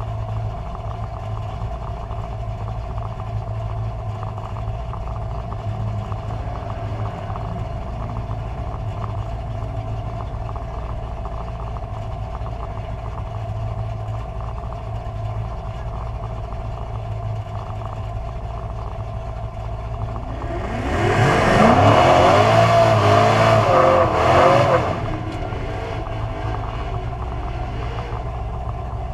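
Carbureted drag car engine idling steadily. About twenty seconds in, a loud burst of revving lasts about four seconds, its pitch rising and falling, before the engine settles back to idle.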